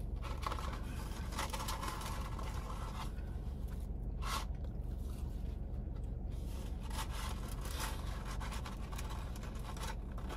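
Fast-food paper and cardboard packaging being handled, scraping and rustling in spells, with a short burst about four seconds in and a run of small sharp ticks near the end.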